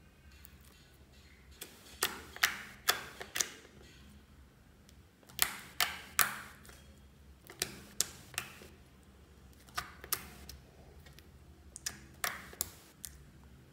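Fingers pressing and poking into a soft, glossy blue glitter slime, making sharp, sticky clicks and pops. They come in quick runs of two to four, a few tenths of a second apart, with short pauses between the runs.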